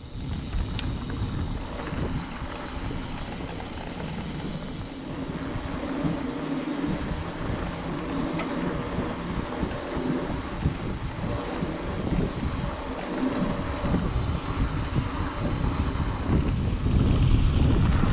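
Wind buffeting the microphone and the rumble of mountain bike tyres rolling over a dirt trail, growing louder near the end as the bike picks up speed.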